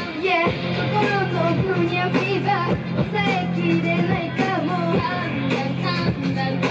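Idol-pop song performed live: a girls' group singing the melody over a pop backing with guitar and a steady beat.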